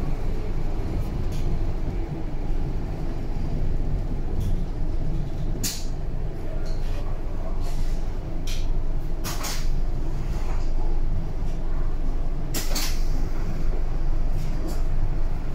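BVG A3L71 U-Bahn train running, heard from inside: a steady low rumble broken by a handful of sharp clacks, the clearest about six, nine and a half and thirteen seconds in.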